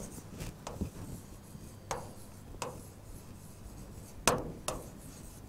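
Chalk writing on a chalkboard: scattered short scratches and taps of the strokes, the loudest about four seconds in.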